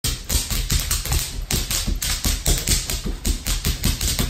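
Bubble wrap being stomped on by two children, its bubbles bursting in a rapid, irregular string of sharp pops, about five a second, with the thuds of feet on the floor beneath them.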